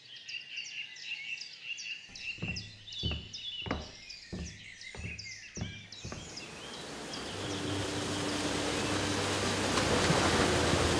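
Woodland birds singing in quick, repeated chirps, with a short run of dull thuds. From about six seconds in, the rush of a waterfall in a gorge grows steadily louder and covers the birds.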